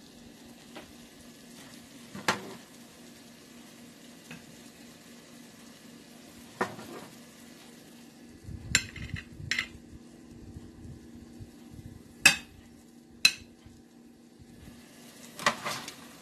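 Dishes and utensils clinking in a kitchen: about half a dozen short, sharp clinks spread out, the loudest about twelve seconds in, over a faint steady low hum.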